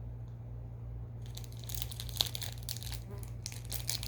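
Plastic candy wrapper crinkling as it is handled, starting a little over a second in, with a sharp click about two seconds in.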